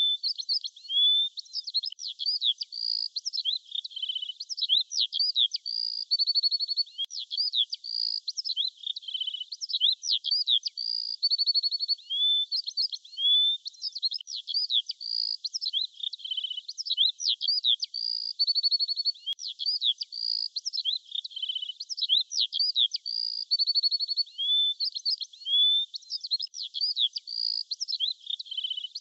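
Songbirds singing without a break: quick high chirps, short trills and whistled notes sliding up and down, with the same phrases coming back every few seconds.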